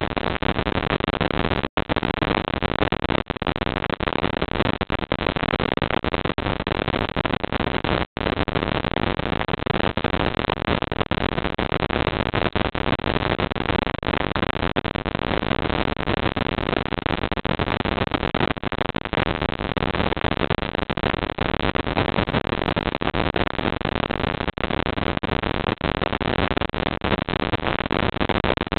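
Steady loud hiss from a security camera's microphone. It is broken by two brief dropouts, about 2 and 8 seconds in.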